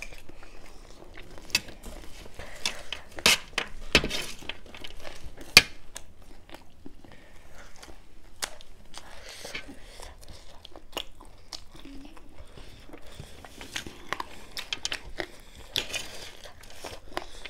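People chewing and biting into dry chicken chatpate, a crunchy puffed-rice snack, with irregular sharp crunches. The crunches are loudest about three to six seconds in.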